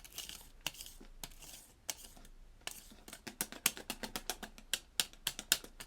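A spoon clicking and tapping against a plastic bowl as a mixture is stirred: scattered light clicks at first, then a quicker irregular run of about four or five a second from about halfway in.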